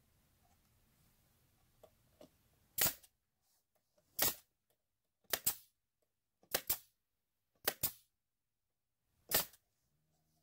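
Pneumatic brad nailer driving brads into wooden boards: about six sharp shots, starting about three seconds in, several of them coming as quick pairs.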